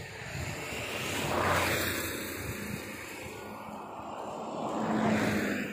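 Road vehicles passing close by, one after another: two swells of engine and tyre noise, each rising and fading away.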